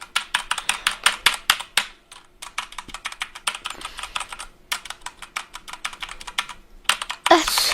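Redragon Kumara mechanical gaming keyboard being typed on: fast runs of keystrokes, broken by short pauses about two seconds in, near five seconds, and shortly before the end.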